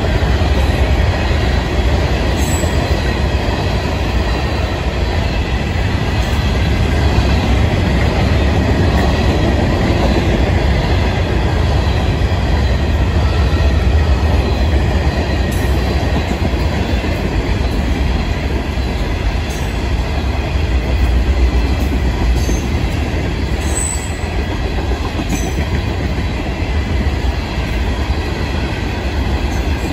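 Freight cars of a long Florida East Coast Railway freight train rolling steadily past: a continuous loud rumble of steel wheels on rail, with a few sharp metallic clicks along the way.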